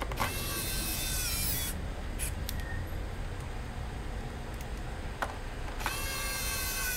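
Small electric screwdriver running in two bursts of about a second and a half each, a high whine that sags slightly in pitch as each burst ends.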